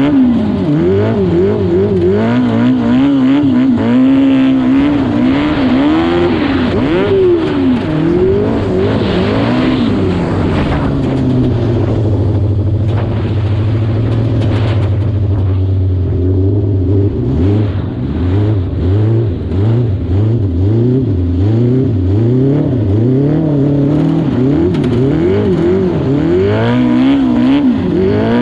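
Yamaha R6 600cc inline-four motorcycle engine in a homemade lawn mower, revving up and down over and over as it drives. It holds a fairly steady pitch for a few seconds about halfway through, then goes into a quick run of rises and drops near the end.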